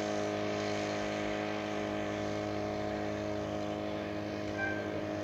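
Petrol brush cutter engine driving a boat-propeller attachment on a small boat, running steadily at constant speed.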